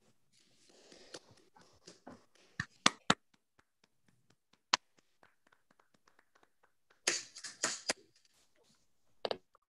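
Scattered faint clicks and taps, with a brief flurry of rapid clicks about seven seconds in and a short burst near the end.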